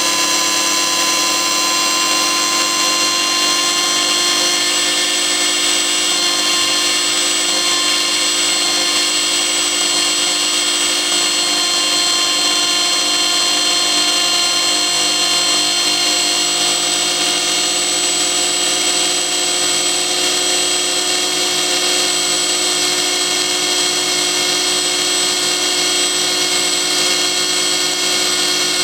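Pressure washer's electric motor running flat out with a steady, high-pitched whine. Its bearings are badly worn and its cooling fins removed, and it is being run until it burns out.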